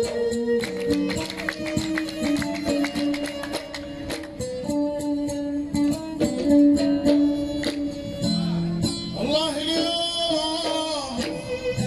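Live Gulf Arabic folk music: an oud plays a melody over a rhythm of small mirwas hand drums. Singing comes in about nine seconds in.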